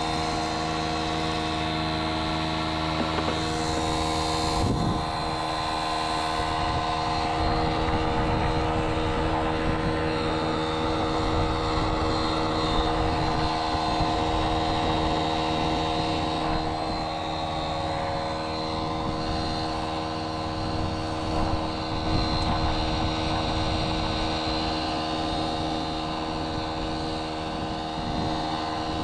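A machine running steadily: a constant drone with several fixed tones and a low rumble, unchanging in pitch.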